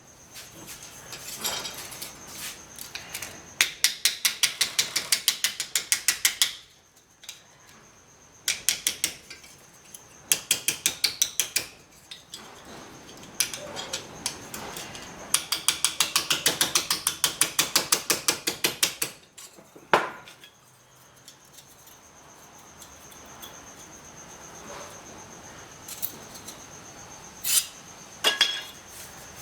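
Hammer tapping rapidly on a sheet-steel patch panel held in a vise, bending it to shape, in several runs of quick even blows with pauses between, and a few single harder knocks near the end.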